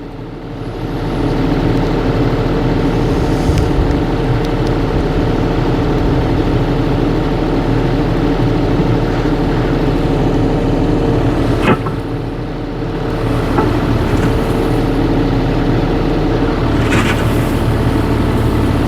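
Mini excavator engine running under load while the hydraulics work the bucket, picking up about a second in. A single sharp knock comes near the middle.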